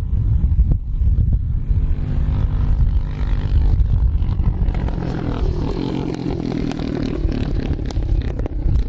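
Britten racing motorcycle's V-twin engine running loudly, with sharp clicks late on.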